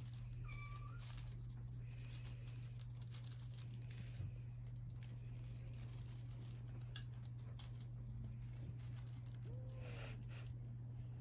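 Faint rustling and light clicks of kittens playing with a feather wand toy on a fabric blanket, over a steady low hum. There are brief thin squeaks near the start.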